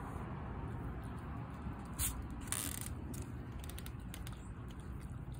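Cat chewing and smacking wet food from a bowl: scattered small wet clicks, with a brief louder rustle about two and a half seconds in.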